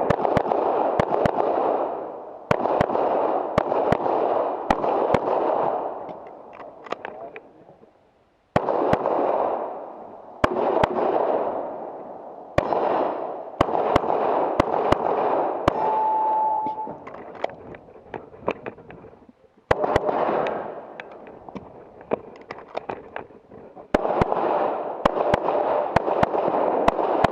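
Handgun fire during a USPSA practical-shooting course of fire: strings of rapid shots with short pauses between them, each string trailing off in a long echo.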